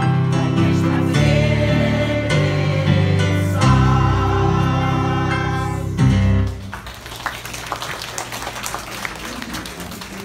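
Choir singing with instrumental accompaniment, ending on a held chord about six and a half seconds in, followed by audience applause.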